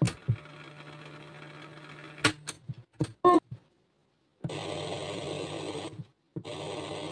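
Clicks of a National RX-5145F radio-cassette boombox's piano-key buttons and selector switch being worked, several in the first few seconds over a faint hum. Then the set's speakers give radio static hiss twice, each about a second and a half long, as it is switched over to the radio.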